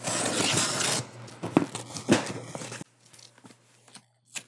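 Cardboard box being handled and opened: a loud tearing for about a second, then rustling cardboard with two sharp knocks, dying down to faint ticks and one short click near the end.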